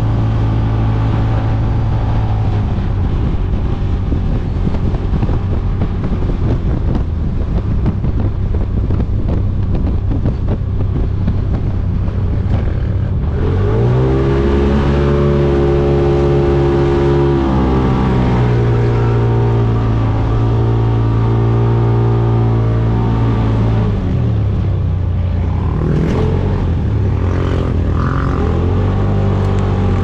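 Side-by-side UTV engine running hard across sand dunes, heard from the cab with wind noise. About 13 seconds in the engine revs up and holds the higher pitch for about ten seconds, then drops back.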